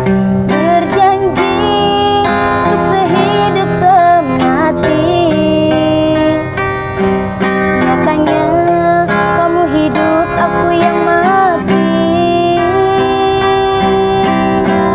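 A woman singing a slow Indonesian pop song over acoustic guitar accompaniment, her melody sliding and wavering above steady chords.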